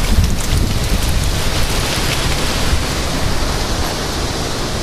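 Strong, gusty thunderstorm outflow wind: cold gust-front wind buffeting the microphone with a heavy low rumble over a steady rushing hiss.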